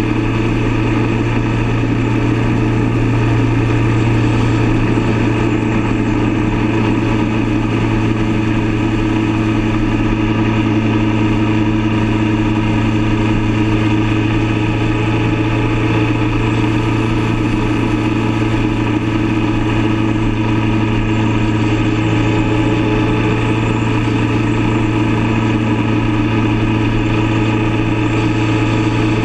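Motorcycle engine running at a steady cruising speed, a constant low drone with no change in revs.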